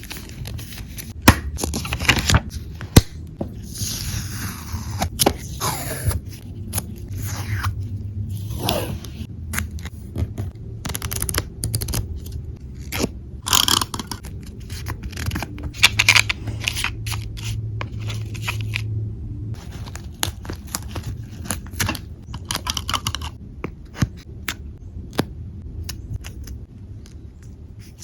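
Paper and scrapbooking supplies handled close to the microphone: scraping, rustling and crinkling of paper, with many sharp taps and clicks in between.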